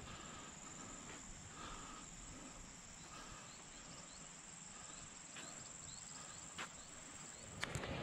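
Insects droning in a steady high-pitched trill, with short repeated chirps over it and two sharp clicks near the end.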